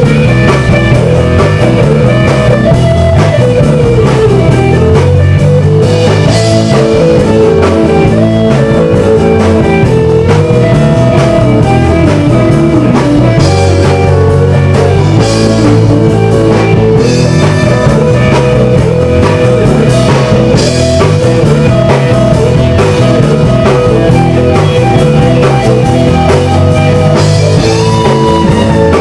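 Loud rock song with electric guitar and a drum kit, with bending guitar notes over a steady beat.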